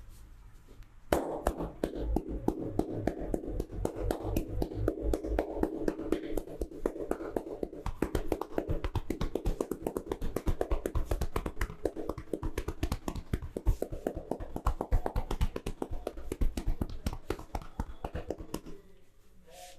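Massage hands rapidly tapping and slapping in a percussive massage. A fast, continuous run of hollow pats starts about a second in and keeps up until near the end.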